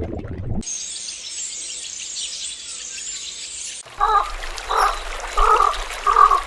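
A dense, high chirping chorus of birds or insects for about three seconds, then a sudden change to a frog croaking in a regular series, about five croaks roughly two-thirds of a second apart.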